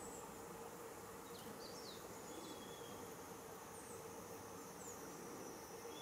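Faint outdoor ambience: a steady insect drone over a soft, even background hiss, with a few brief, thin, high bird calls and one longer whistle near the end.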